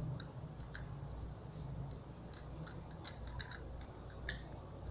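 Plastic Beyblade launcher parts clicking and scraping against each other in the hands, in irregular small clicks, as a grip piece is being pushed and fitted onto the launcher without snapping into place.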